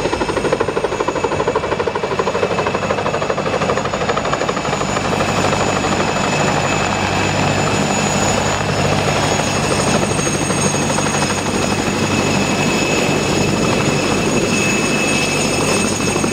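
Light helicopter coming in to land close by, its rotor beating rapidly over a steady high whine.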